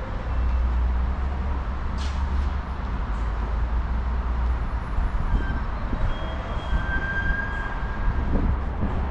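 Washington Metro train running with a steady low rumble, with faint high wheel squeals on and off and a single click about two seconds in.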